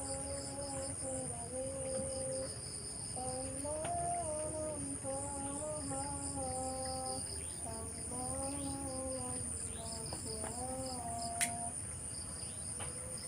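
Crickets and other night insects chirping steadily, with a slow melody of long, gliding held notes over them, like humming. A single sharp click comes about eleven seconds in.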